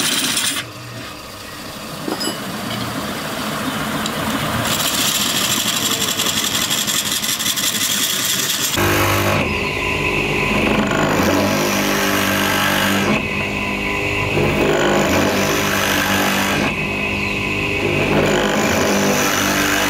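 A belt-driven wood lathe turning a wooden disc, with a hand-held chisel cutting shavings from it. About nine seconds in, this gives way to an electric motor running with a drill bit on its shaft, boring a row of holes into the edge of a wooden clock ring, one hole about every three to four seconds.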